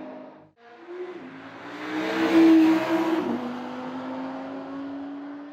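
Sports car engine accelerating: the pitch climbs to its loudest about two and a half seconds in, drops suddenly at a gear change, then climbs steadily again.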